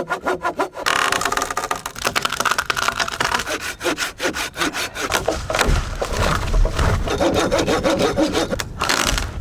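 Small hand pruning saw cutting through a thick tree limb in quick back-and-forth strokes, each stroke a rasp of teeth through wood. A low rumble joins a little past halfway.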